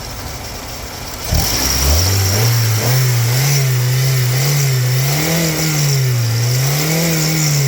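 A 2001 Honda Accord's four-cylinder engine is revved from idle. A little over a second in the revs climb sharply, then rise and fall in three slow swells before dropping back toward idle at the end. The owner calls this engine totally fine and solid at 216,000 miles.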